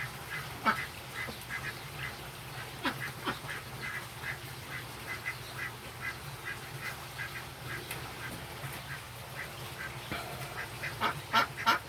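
Bird calls repeated quickly, about two a second, over a steady low hum; they grow louder and come faster near the end.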